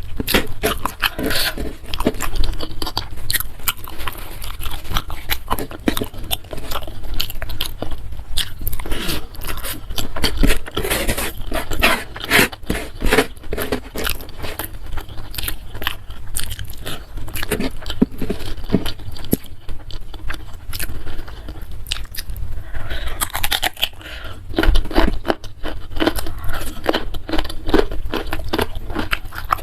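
Close-miked eating: steady, irregular chewing and crunching, with many small wet mouth clicks.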